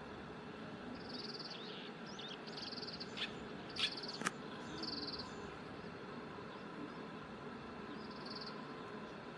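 Oriental greenfinch calling: about five short, high, trilled calls, each about half a second long, with a few brief chirps between them. Three sharp clicks come between about three and four and a half seconds in; the last is the loudest sound in the stretch.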